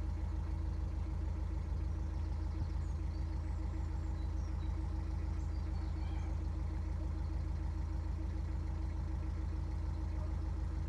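A narrowboat's inboard engine running steadily under way, with a low, even pulsing note that does not change.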